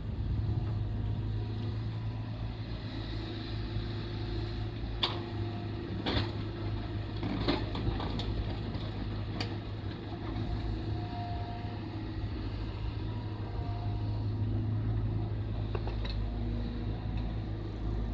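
Mini excavator's small diesel engine running steadily while it digs fill soil, with a few sharp knocks between about five and ten seconds in.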